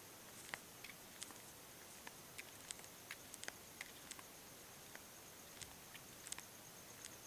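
Near silence: faint, irregular small clicks and ticks over low hiss, with a faint steady high-pitched tone.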